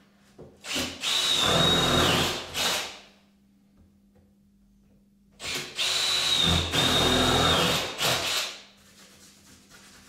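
Combi drill boring into the wooden door in two runs of about two and a half and three seconds, each with a steady high motor whine over the grinding of the bit in the wood, stopping and starting again about five seconds in.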